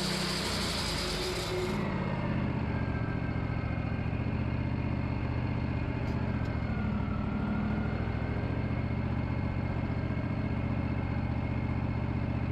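Wood-Mizer LT40 band sawmill's engine running steadily at working speed. A bright hiss over it cuts off suddenly about two seconds in.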